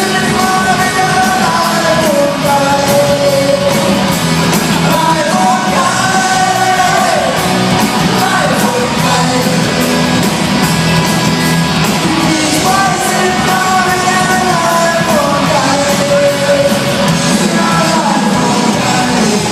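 Live band music with a voice singing over it, loud and steady, with some shouting.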